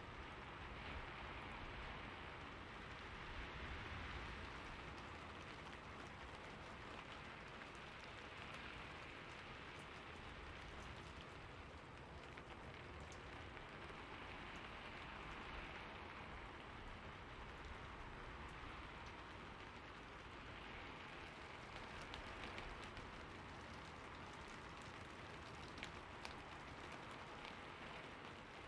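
Steady rainfall pattering on a surface, a soft, even hiss with scattered drop ticks.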